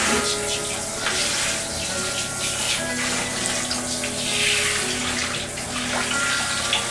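Shower water spraying from a handheld shower-head brush over a wet toy poodle standing in a basin of water: a steady hiss of running water with splashing.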